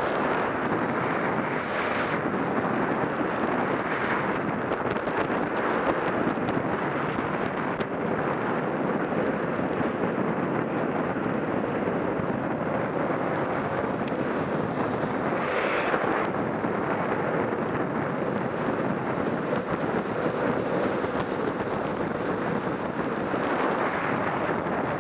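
Steady wind rush on the microphone over the hiss of longboard wheels rolling fast down wet asphalt, swelling briefly louder a few times, most strongly about sixteen seconds in.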